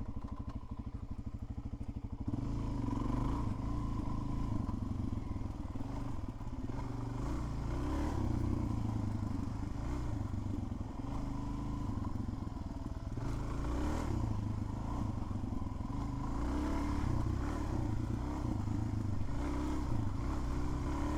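Suzuki DR-Z400's single-cylinder four-stroke engine at low revs while riding a trail. It chugs evenly for the first two seconds, then rises and falls with the throttle.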